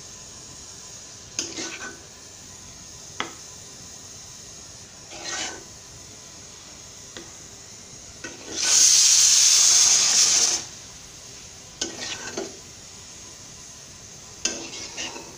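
Metal spatula scraping cooked tomato paste out of a karahi onto a plate: a series of short scrapes and knocks against the pan, with one loud, steady scrape lasting about two seconds midway.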